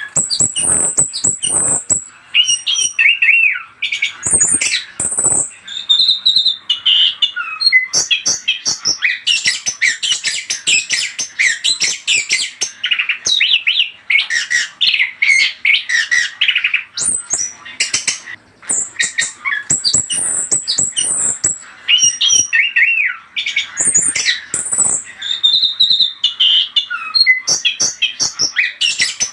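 Orange-headed thrush singing a loud, fast, varied song of whistled phrases, chatter and harsher notes, with only brief pauses; a few knocks sound among the song about four to five seconds in.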